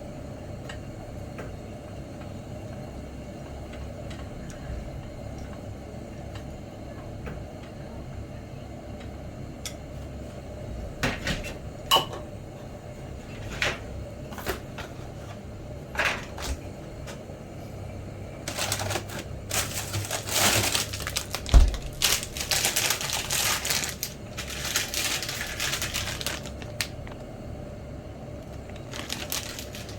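Scattered sharp clicks and knocks, then several seconds of scraping and clattering from small hard objects being handled, over a steady low hum.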